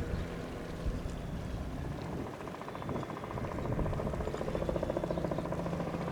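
Robinson R44 Raven helicopter in flight, its two-blade main rotor giving a rapid, even beat of about ten pulses a second that grows stronger from about halfway in.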